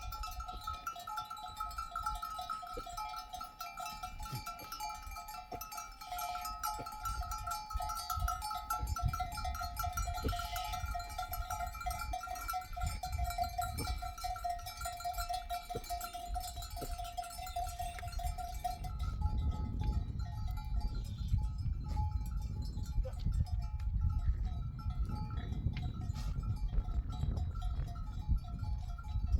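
Bells on a grazing flock of sheep ringing and clinking steadily. About two-thirds of the way through, the lower ringing drops away and a low rumble comes in.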